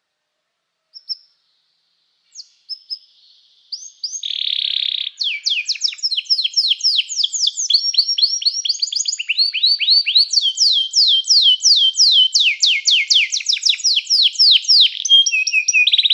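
Domestic canary singing: a few short isolated chirps, then from about four seconds in a continuous song of rapid trills, each phrase a fast run of repeated downward-sweeping notes, with a buzzy rolling trill early on and again near the end.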